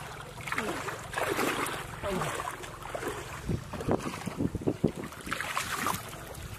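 Shallow muddy pond water sloshing and splashing as hands sweep and grope through it, in irregular swishes with a cluster of sharper splashes about four to five seconds in.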